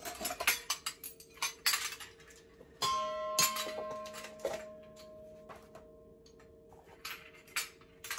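Metal measuring spoons and kitchenware clinking and tapping in quick, irregular clicks. About three seconds in, a ringing tone starts suddenly and fades slowly.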